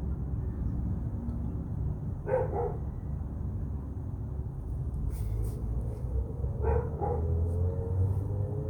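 A dog barking in short bursts, about two seconds in and again near seven seconds, over a steady low rumble.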